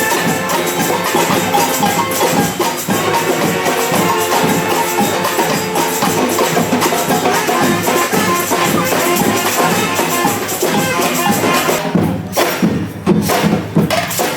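Acoustic street band playing a busy piece with percussion throughout. About twelve seconds in, the dense melody drops away and sharp drum and percussion strikes carry on.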